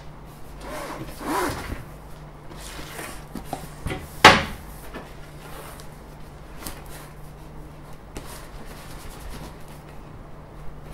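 A large cylindrical cardboard box rubbing and scraping as it is tipped over and turned upside down on a table, with one sharp knock about four seconds in.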